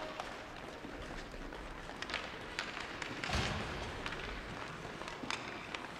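Ice hockey play echoing in a rink: scattered sharp clacks and scrapes of sticks, puck and skates over a steady noisy background, with a heavier thud about three and a half seconds in.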